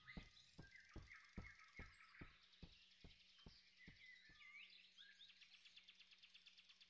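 Near silence: faint forest birdsong with a run of soft, evenly spaced taps, about two and a half a second, that fade away about four and a half seconds in.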